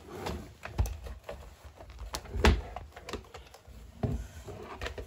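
Irregular clicks and knocks of a large plastic Indominus Rex toy being handled and shifted about on a wooden floor, with the loudest knock about two and a half seconds in.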